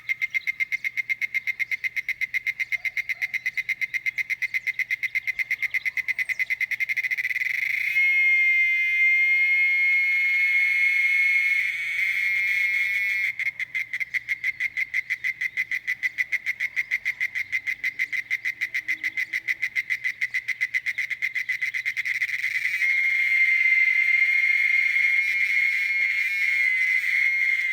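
Cicadas (chicharras) singing loudly: a high, rapidly pulsing buzz that twice merges into a steady drone, then cuts off abruptly near the end.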